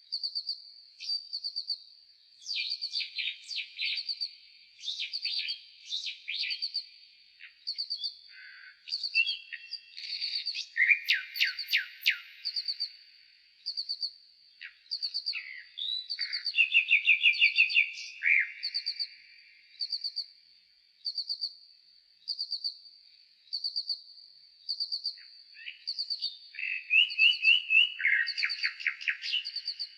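Nightingale song played back four times slower: short high notes repeat about once a second, between longer phrases of rapid trills and falling notes. The loudest phrases come about a third of the way in and near the end.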